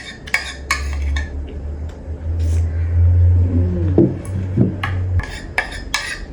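Cutlery and dishes clinking during eating: a run of sharp clicks, sparse at first and coming faster near the end. Under them a loud low hum runs until it cuts off about five seconds in.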